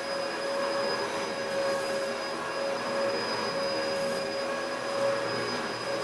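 Vacuum cleaner running steadily: a rush of air with a constant motor whine, wavering slightly in level.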